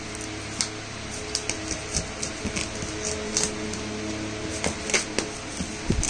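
Plastic shrink-wrap on a cardboard box being handled, with a few sharp crackles roughly once a second over a steady hum.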